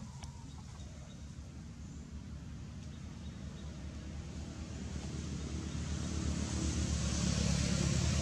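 A motor vehicle's engine, a low hum with a hiss that grows steadily louder as it comes closer.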